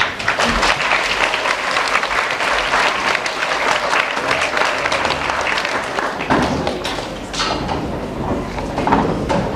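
Audience applauding: dense clapping that breaks out at once and thins out over the last few seconds.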